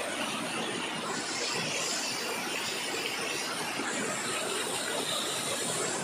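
Small waterfall's water rushing and splashing over rocks, a steady, even rush.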